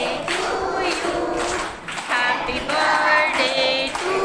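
A group of young children singing a birthday song together.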